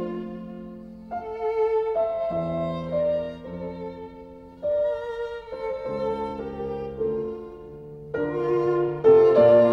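Background music: a slow violin melody with vibrato over sustained lower chords, the notes changing every half second to a second.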